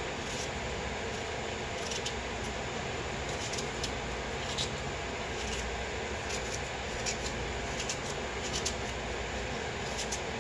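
Small knife cutting pieces off a fresh apple held in the hand: short crisp cuts at irregular intervals, over a steady background hiss.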